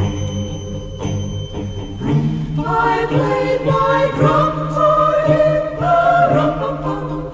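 Background music: a choir singing long, sustained notes over a steady low drone, with a bell-like chime near the start.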